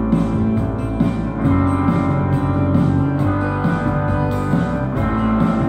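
Instrumental music with guitar and a steady beat.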